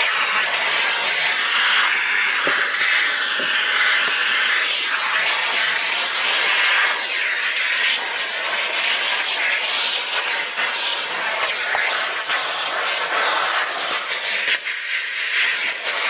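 Numatic Henry vacuum cleaner running, its hose nozzle drawing air with a steady hiss that wavers as it is worked along the car's seat and carpet.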